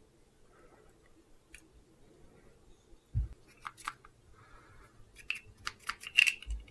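Small plastic clicks and knocks from handling a Derwent water brush and fitting its cap onto the barrel: a soft knock about three seconds in, then a quick run of sharp clicks and another knock near the end.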